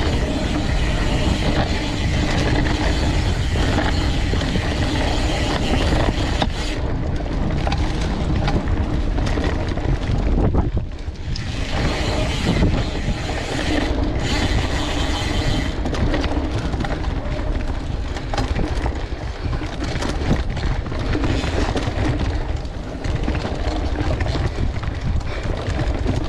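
Wind rushing over the microphone while a Scott Spark cross-country mountain bike rolls fast down a dry dirt singletrack, with tyre rumble and frame and drivetrain rattle over roots and bumps. The noise is steady, with a short quieter dip about eleven seconds in.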